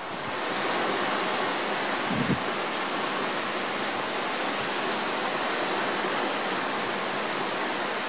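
Steady rushing of water, with a brief low thump about two seconds in.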